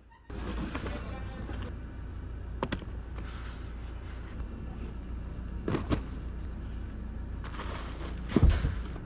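Suitcases being loaded into a car's cargo area: knocks and thumps as hard-shell and wheeled luggage is set down and pushed across the rubber trunk mat, a few times, the loudest thump near the end. A steady low rumble runs underneath.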